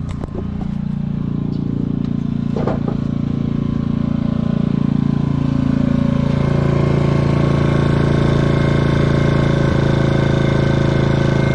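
Portable generator engine running steadily, growing louder over the first several seconds, with a few knocks near the start.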